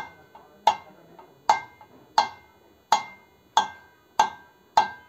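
Hammer blows on a steel drift set in the hub of a motorcycle alloy wheel: about eight sharp, evenly spaced strikes, each with a short metallic ring.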